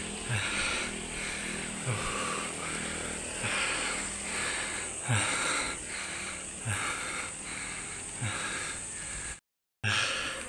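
A cyclist's heavy, rhythmic breathing while pedalling, about one breath every second and a half, over a steady wind and road hiss. The sound cuts out briefly near the end.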